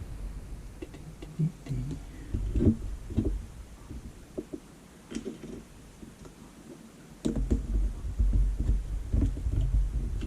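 Small clicks and taps of hands handling and fitting small plug parts on a workbench, with a low rumble setting in about seven seconds in.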